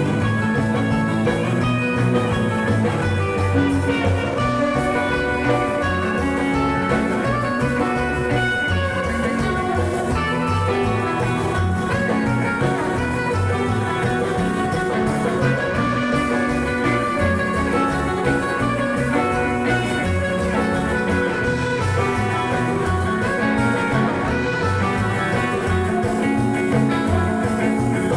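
Live band playing with electric guitars over upright double bass and drums, at a steady, driving level.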